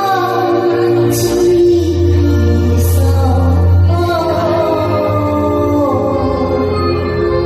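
Karaoke: a voice singing through a KTV microphone over a loud backing track with a heavy bass line.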